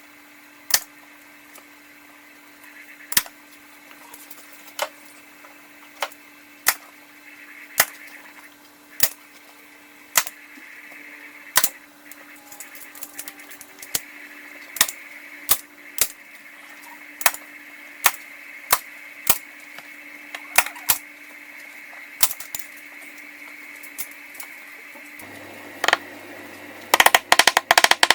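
Heavy-duty manual staple gun firing staples into upholstery, one sharp snap about every one to two seconds, some twenty shots in all. Near the end a dense clatter of rapid clicks sets in.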